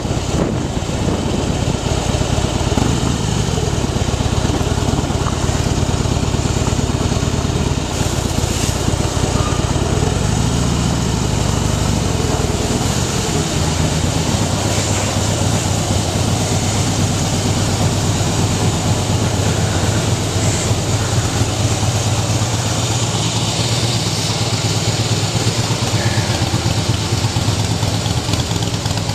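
Harley-Davidson 2009 Night Train's V-twin, bored out to 103 cubic inches with a Stage II big bore kit, running as the bike rolls slowly. About halfway through it settles into idling with an uneven, loping beat.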